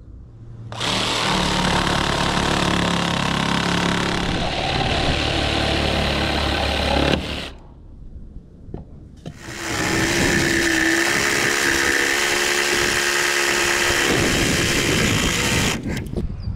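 Cordless power tool working into timber fence slats in two runs of about six seconds each, with a short pause between. The second run is a steady buzz, an oscillating multi-tool plunge-cutting an opening in a slat.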